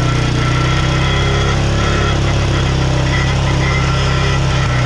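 2019 Yamaha Raptor 700 ATV's single-cylinder engine idling steadily, with a little rattle that the riders place inside the muffler, from something loose within it, though the muffler itself is not loose.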